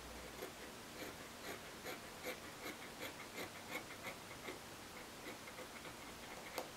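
Scissors cutting through cloth in a run of short, faint snips, about three a second, with one sharper click near the end.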